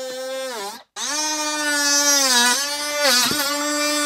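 Milwaukee M12 compact cut-off tool whining at full speed as its cut-off wheel cuts into a hard plastic Packout lid. It drops out abruptly for a split second just under a second in, then resumes at a slightly higher pitch, dipping briefly twice near the end as the wheel loads up in the cut.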